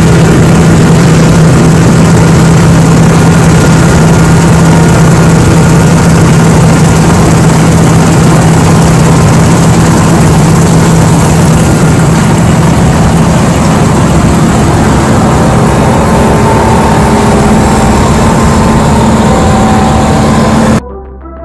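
Heavy farm machinery engine running steadily at close range, loud and even, with a steady low hum that steps up slightly in pitch about three-quarters of the way through.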